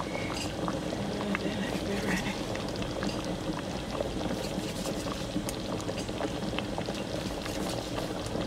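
Thick stew of red kidney beans, meat and flour dumplings bubbling in a large pot at a slow, steady simmer, with many small pops of bursting bubbles.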